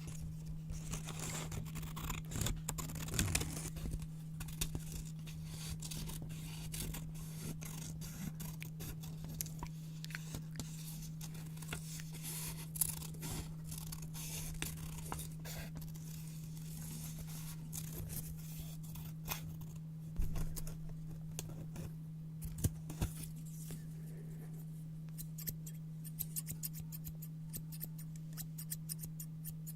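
Scissors snipping through white paper: many small crisp snips, coming faster in a quick run near the end. A steady low hum sits underneath.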